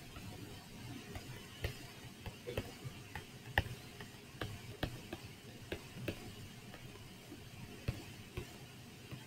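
Irregular light clicks and taps of a stylus on a tablet screen while equations are handwritten, over a faint steady hiss.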